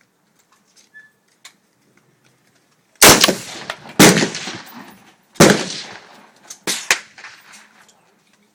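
AR-15 rifle firing: three loud shots, the first two about a second apart and the third about a second and a half later, each trailing off in echo, followed by two fainter sharp cracks.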